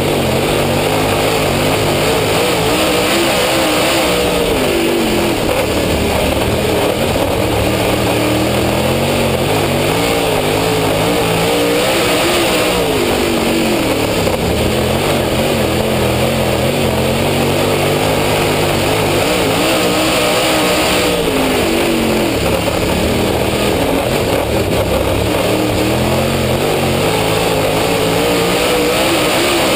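Dirt Late Model race car's V8 engine heard close up from on the car at racing speed, winding up in pitch and then falling back every several seconds as the driver backs off for each turn and accelerates out.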